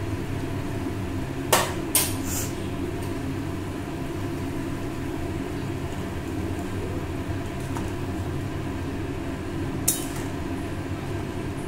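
Chicken stew boiling in an aluminium pot over a high gas flame, a steady low rumble and bubbling. A spatula knocks against the pot a few times, three quick clinks about a second and a half to two and a half seconds in and one more near the end.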